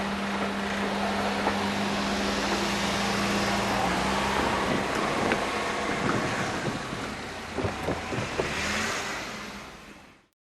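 Vehicle noise: a steady engine hum for the first few seconds, then a wider rushing noise with a few knocks, fading out near the end.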